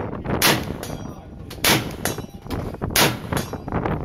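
SIG716 Precision 7.62 rifle firing three shots through a thread-on SIG 7.62 suppressor, evenly spaced about 1.3 seconds apart.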